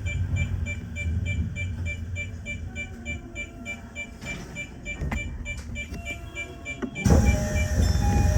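Fast repeating electronic beeps, about three a second, over a low rumble while the train stands at the platform, typical of a station's departure signal. About seven seconds in, a louder noise cuts in suddenly.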